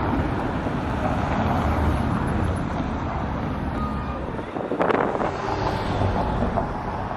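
Road traffic noise: a steady rumble and hiss of passing vehicles, with a sharp clatter about five seconds in.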